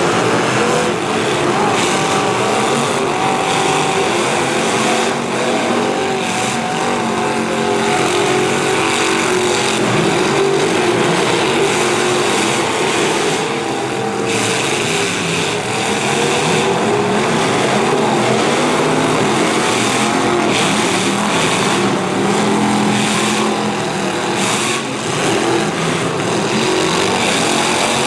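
Several demolition derby cars with V8 engines revving hard, their engine notes rising and falling, with scattered bangs of car bodies crashing into one another.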